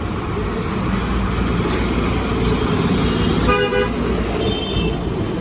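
Street traffic running steadily, with a short vehicle horn honk about three and a half seconds in and a brief, higher-pitched toot just after.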